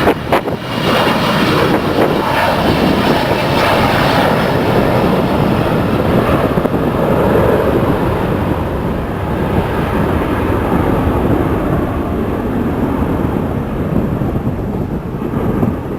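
Boeing 737-300's CFM56 turbofan engines at take-off thrust: a loud, steady jet noise. The high hiss is strongest in the first few seconds and eases as the jet moves away, with wind buffeting the microphone near the start.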